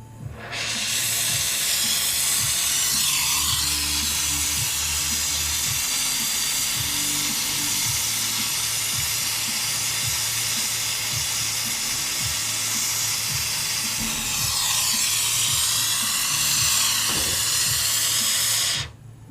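Pressurised gas hissing out steadily for about eighteen seconds, with two slow whooshing sweeps in its tone, starting abruptly and cutting off abruptly.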